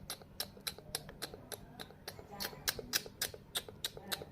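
A steady series of sharp clicks or taps, about three or four a second.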